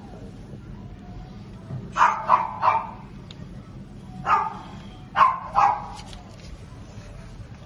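A dog barking in short bursts: three quick barks about two seconds in, one more a couple of seconds later, then two close together.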